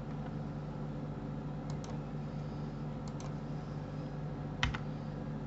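Computer keyboard and mouse clicks: three quick double clicks, roughly a second and a half apart, over a steady low hum.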